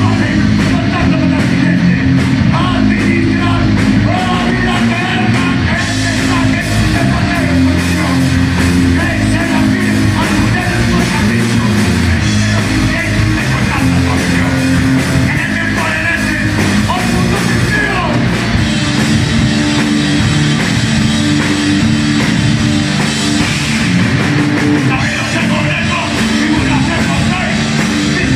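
Live rock band playing loudly with electric guitar, bass guitar and drums, and a singer's voice coming through at times, heard from the room.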